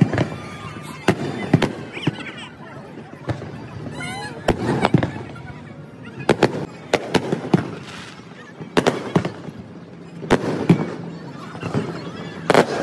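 Aerial fireworks display: shell bursts going off as sharp bangs in irregular clusters, several close together at times, throughout.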